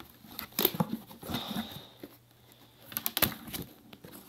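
Handling noise from working a knife box's lid off: scattered rustles, scrapes and taps of the packaging, busiest about half a second in and again about three seconds in.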